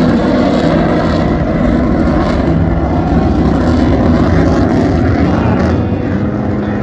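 Military fighter jet flying a low display pass, its engine noise a loud, steady rush.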